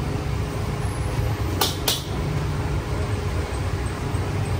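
Busy street background noise: a steady low rumble, with two sharp clacks in quick succession about a second and a half in.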